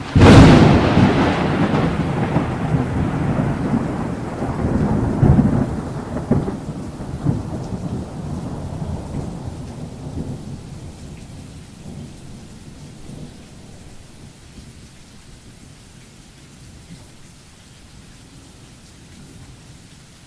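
A thunderclap breaks suddenly, then rolls on as a long rumble that swells again a few seconds in and slowly fades away, with rain hissing steadily beneath it.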